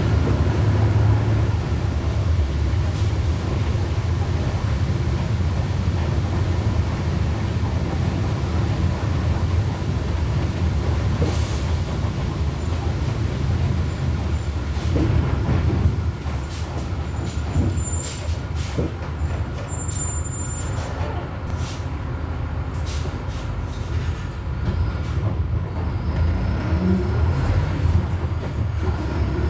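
Volkswagen Volksbus 17.230 OD bus on the move, heard from on board: the diesel engine and drivetrain run steadily under a faint whine, the growl of the gearbox. A short hiss of air comes about eleven seconds in. About halfway the sound drops as the bus eases off, and the second half has rattling clicks and a few brief high squeaks.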